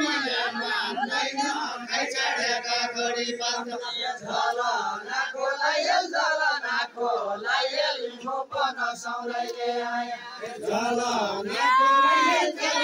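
A group of men singing a Deuda folk song together in a chanting style. There is a loud sung note that rises and falls near the end.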